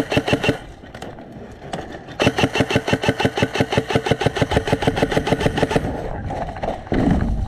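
Airsoft electric rifle firing on full auto with a rapid, even rattle of shots: a short burst ending about half a second in, then a longer burst of about three and a half seconds starting about two seconds in. A low rumble follows near the end.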